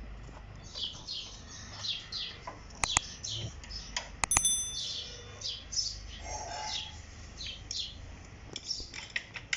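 Birds chirping in short, repeated high notes that sweep downward. About three seconds in come two sharp clicks, then a click and a bright bell ding, the sound effect of a subscribe-button animation.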